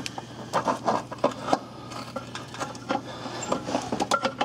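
Irregular metal clinks and knocks as a replacement starter motor is worked up into its mounting position against the engine, over a steady low hum.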